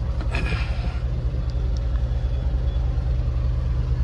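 Heavy truck's diesel engine running steadily under way, a low rumble heard from inside the cab.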